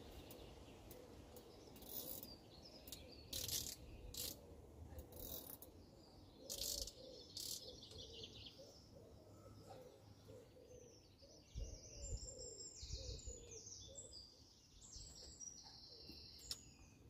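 Small birds chirping over quiet outdoor background noise, with a fast, high twittering song in the second half. A few short scratchy rustles come in the first few seconds.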